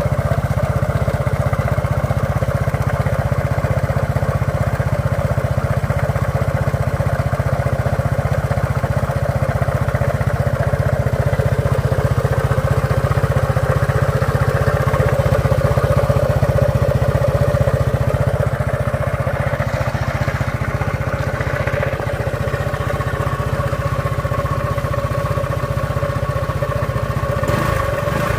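Motorcycle engine running steadily at idle with an abnormal noise, which the owner puts down to a worn crankshaft that needs replacing.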